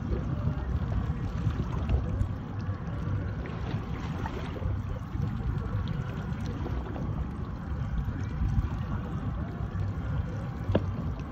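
Wind rumbling on the microphone and water lapping against a boat at sea, a steady, fluctuating noise, with one sharp click near the end.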